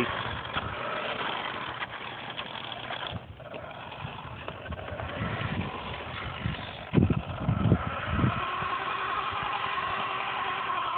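Electric drive motor and gears of a heavily loaded remote-control car whirring steadily as it climbs uphill, straining under the weight. A few low thumps come in a quick group about seven to eight seconds in.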